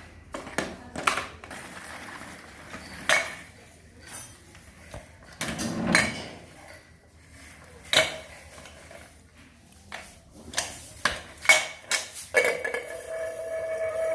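Small stainless-steel pot knocking and clanking against a stone tile floor and a plastic baby walker: a dozen or so separate metallic clanks with brief ringing, several in quick succession near the end. A steady tone comes in shortly before the end.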